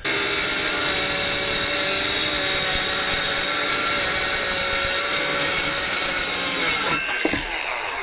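Circular saw cutting through a half-inch birch plywood sheet, its motor whine held steady through the cut. About seven seconds in, the whine drops in pitch and fades as the blade winds down.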